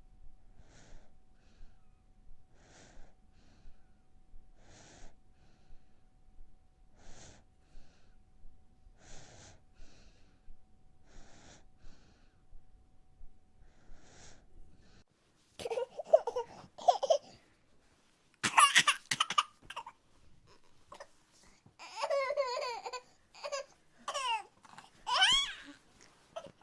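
A baby breathing faintly and evenly, a breath about every two seconds. A little over halfway through, the baby starts vocalising much louder: short runs of laughing and babbling that rise and fall in pitch.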